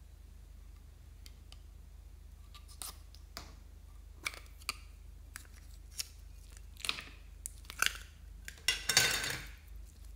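Plastic lollipop-shaped toy container being handled and opened with a series of small sharp clicks and taps, then thick yellow slime squeezed out of it with a wet squelch, the loudest sound, near the end.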